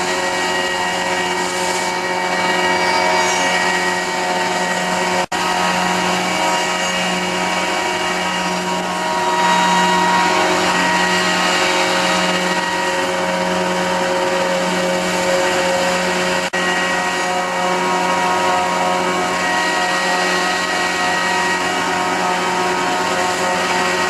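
5-axis CNC machine milling aluminium: a steady spindle whine with the cutter's ringing tooth-pass tones over cutting hiss. It is broken by two very short gaps, about five seconds in and about sixteen seconds in.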